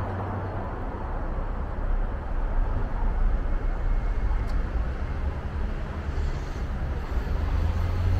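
City street traffic noise heard from a moving bicycle: a steady hum of passing vehicles over a deep low rumble that swells at times.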